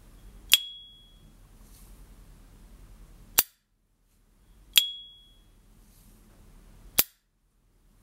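S.T. Dupont Ligne Gatsby lighter's lid flipped open twice, each time with a sharp click and a single high, clear ping that rings for about half a second. This is the lighter's signature opening chime. Each opening is followed two to three seconds later by a short dry snap as the lid is shut.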